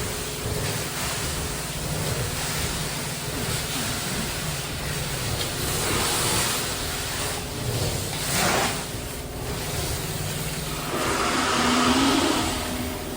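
Truck-mounted carpet cleaning machine working: a steady hum under a rushing hiss of hot-water spray and vacuum extraction through the cleaning wand, swelling briefly a few times.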